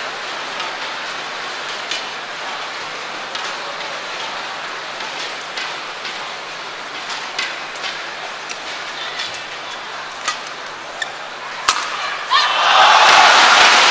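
A badminton rally: sharp racket hits on the shuttlecock at irregular intervals over the steady murmur of a crowd in an indoor arena. About twelve seconds in, the crowd breaks into loud applause and cheering as the point ends.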